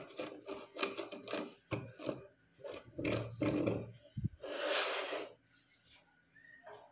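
Hand-cranked winch spool on a homemade wooden drilling rig being turned, with a run of irregular creaks and rasps of wood and string. About 4.5 s in there is one longer scraping hiss as the motor carriage is moved along its wooden guides.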